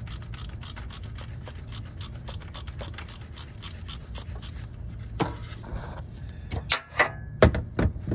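Ratchet clicking rapidly as a bolt is backed out of the alternator mount. Several louder metal clanks and knocks come near the end.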